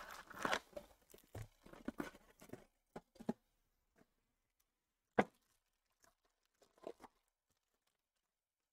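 Trading-card packs and cards being handled: faint rustling and tearing for the first few seconds, a single sharp tap about five seconds in, and a couple of small clicks near seven seconds.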